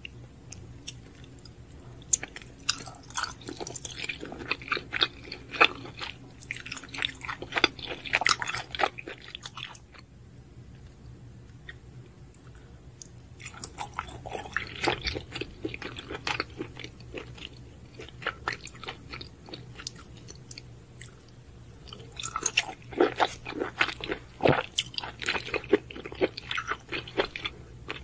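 Close-miked chewing and biting of raw shellfish dipped in chili sauce: many quick, clicky mouth sounds in three runs, with quieter stretches between.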